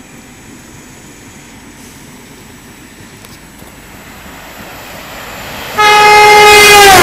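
An express train approaching, its rumble slowly growing, then sounding its horn loudly about six seconds in. The horn note is held for about a second and drops in pitch near the end as the train rushes past.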